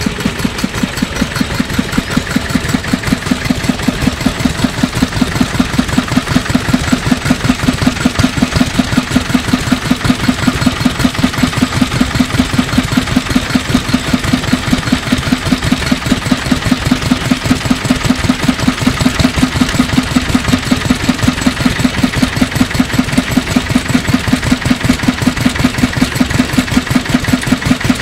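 Kubota Universe KND5 single-cylinder diesel engine of a 1950s Kubota rotary tiller, idling steadily with an even, rapid exhaust beat.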